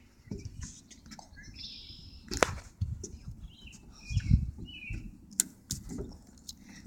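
Outdoor ambience: low wind and handling rumble on the microphone, faint bird chirps, and a few sharp knocks, the clearest about two and a half seconds in.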